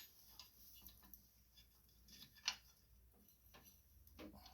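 Faint, scattered metal clicks and taps of a bolt and nut being fitted by hand, with a sharp click at the start and a louder one about halfway through.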